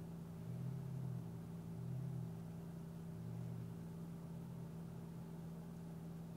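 The 1.8-litre turbocharged four-cylinder engine of a 2004 Audi A4 is idling on a cold start. It makes a steady low hum, and a deeper note swells briefly three times in the first few seconds. The owner suspects a momentary vacuum leak in the secondary air injection system on cold starts.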